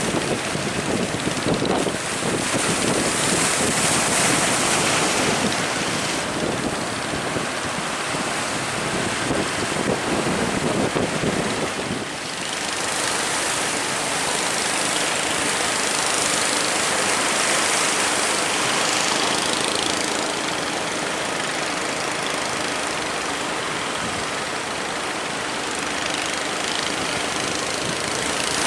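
Heavy wind noise and rushing, breaking sea water around a boat in rough seas, loud and continuous, with a brief dip about twelve seconds in.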